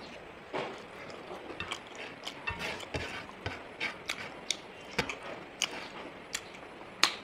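Eating sounds of someone chewing curried chicken wings: irregular clicks and smacks of the mouth, a few a second, the sharpest just before the end.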